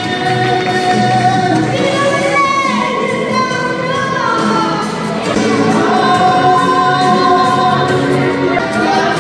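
Live singing through microphones and a PA: a woman and a man sing held, gliding notes over musical accompaniment.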